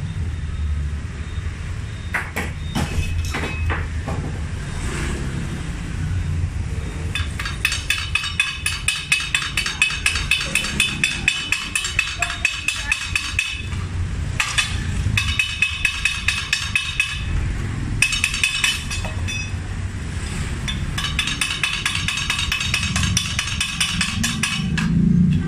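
Stick welding with a Megatec mini inverter welder burning a 3.2 mm electrode: the arc crackles and sizzles in a rapid, uneven run starting about seven seconds in, breaking off briefly a few times, over a steady low hum.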